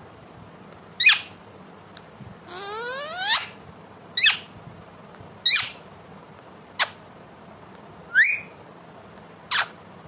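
Ringneck parakeet giving seven short, sharp calls about one every second and a half. The second call, near the middle, is longer and rises steadily in pitch.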